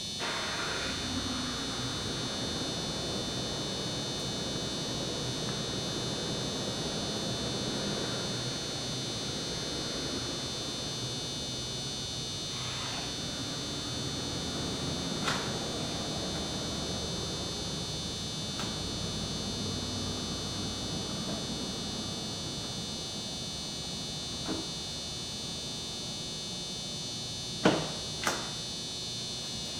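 A steady high-pitched electrical buzz, with a few sharp clicks from hand work, two of them close together near the end.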